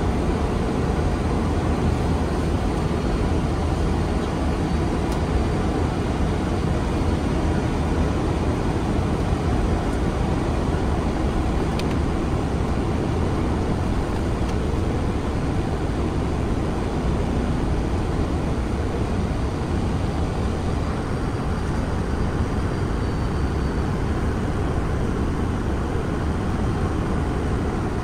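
Airbus A330 flight-deck noise on approach: a steady rush of airflow and engines, strongest in the deep low end.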